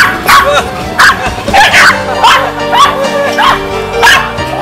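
Upbeat background music with dogs barking and yipping over it, short barks coming again and again every half second to a second.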